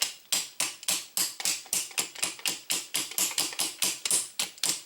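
Rapid light hammer taps, about four a second, struck on a Taurus/Rossi Circuit Judge to jar its stuck wooden forend loose.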